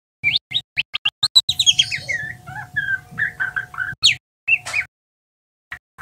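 Young male white-rumped shama, still in speckled juvenile plumage, practising its song. First comes a quick run of short rising chirps, then a falling string of whistled notes and a soft twittering, broken by short pauses near the end. This rambling twitter is the juvenile's song-learning stage.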